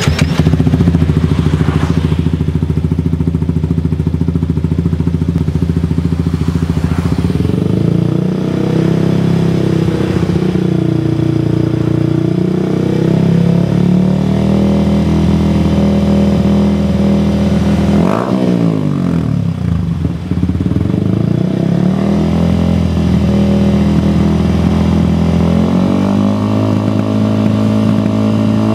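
Yamaha R15 VVA's single-cylinder 155 cc engine breathing through an aftermarket R9 H2 series exhaust with a deep, bassy note, idling and being revved by hand on the stand. The revs swell and drop a few times, with a sharp blip rising and falling about 18 seconds in and another just before the end.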